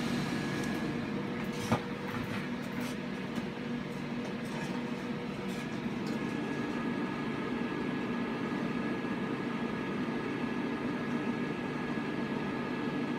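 Homebrew 3CPX1500A7 tube amplifier running: a steady whir and hum from its cooling blower and power supply, with a single sharp click about two seconds in.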